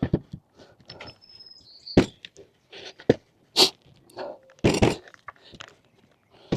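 Irregular knocks, clicks and rattles of camper-platform parts being handled and fitted together: the trunk runners with their T-nuts. A short high squeak about a second and a half in.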